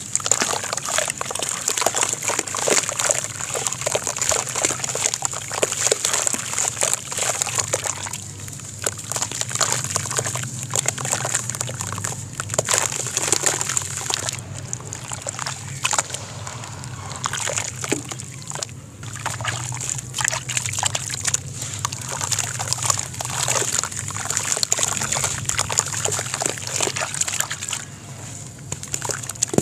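Hands crumbling and squeezing soaked sand-cement blocks in a plastic basin of water: continuous, irregular wet squelching and sloshing, with brief lulls between handfuls.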